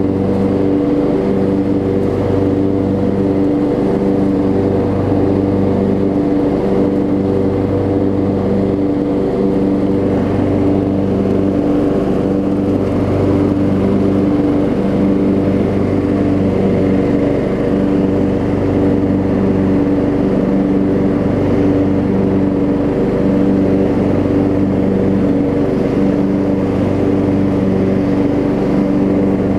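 Craftsman riding mower's 15.5 hp Kohler Command single-cylinder engine running steadily as the mower is driven along.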